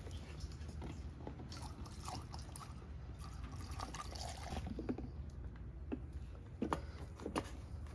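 Gasoline being poured into a lawnmower's fuel tank: a faint trickle of liquid, with a few light clicks scattered through it.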